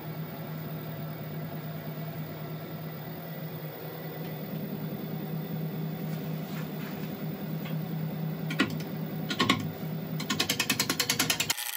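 Wood lathe running with a large elm platter blank spinning outboard, its motor hum growing a little louder as the speed is turned up. Near the end a gouge meets the spinning blank: a few sharp clicks, then a fast ticking about ten times a second as it starts an interrupted cut on the uneven face.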